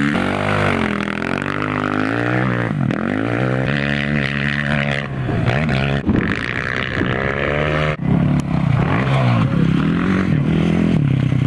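Dirt bike engine revving hard as it is ridden through soft sand, its pitch climbing and dropping again and again with the throttle and gear changes. The sound breaks off abruptly twice, about six and eight seconds in.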